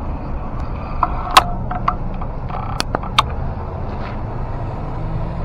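Street traffic at a junction: a steady low rumble and hum of cars, with a few sharp clicks or knocks in the middle.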